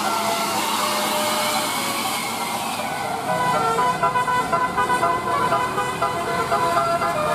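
Bus 'telolet' multi-tone horn playing a tune of short notes stepping between pitches, over vehicle noise.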